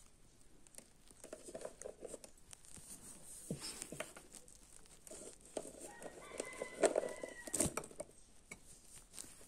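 Faint clicks and light knocks of hands working over a mixing bowl, with a few short animal calls in the background, the clearest about six to seven seconds in.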